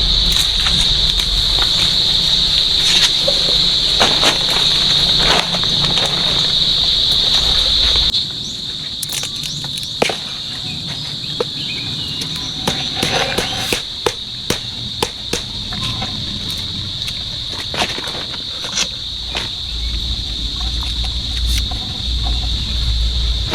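A steady, high-pitched insect chorus, with scattered sharp clicks and light taps over it. The low background drops in level about eight seconds in.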